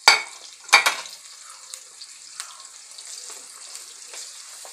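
Halved garlic cloves frying in hot oil, a steady high sizzle, with two loud clatters near the start as the pan is stirred.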